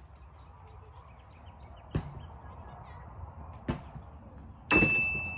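Balls thrown at a wooden target board hitting it: a sharp knock about two seconds in, another near four seconds, and a louder hit near the end followed by one clear high ringing tone that holds steady.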